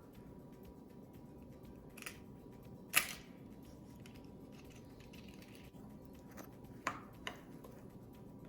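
A spoon knocking and clicking against a mixing bowl a few times while dough is stirred, the loudest knock about three seconds in, over a faint steady background.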